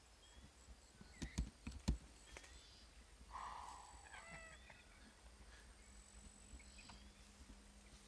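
Quiet outdoor scene: a few faint thumps of footsteps through dry grass between one and two seconds in, then a short warbling animal call in the middle.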